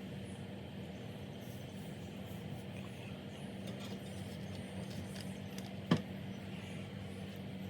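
Soldering gun humming steadily while it heats a battery wire in a QS8 connector's solder cup, with a single sharp click about six seconds in.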